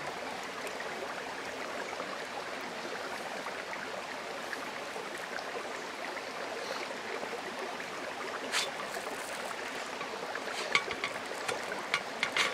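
Steady rush of creek water flowing. Near the end, a few light clicks and scrapes as a spatula works pancakes off a cast iron griddle and onto a plate.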